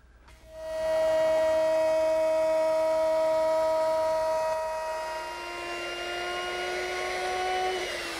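Electric router starting up and running at a steady high whine as it cuts a rabbet along the edge of a pine panel. Its pitch steps up slightly about five seconds in. Near the end it is switched off and starts to wind down, falling in pitch.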